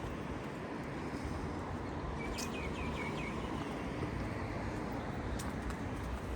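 Street ambience: a steady hum of distant traffic, with a short run of about five quick bird chirps a little over two seconds in.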